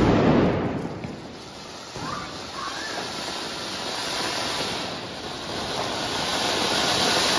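Two flower-pot fountain fireworks spraying sparks with a steady hiss that swells over several seconds. A small sharp crack comes about two seconds in.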